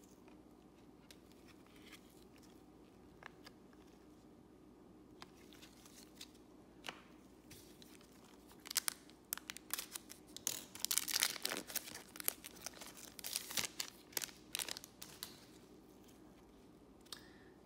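The foil wrapper of a Panini Select baseball card pack being torn open and crinkled. For the first eight seconds or so there are only faint ticks of cards being handled, then comes a run of sharp crackling tears lasting several seconds.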